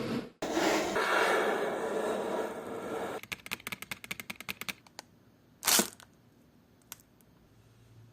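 Hand-made Foley sound effects: a dense rasping, scraping noise for about three seconds, then a fast run of clicks, about ten a second, followed by one short loud burst and a single click.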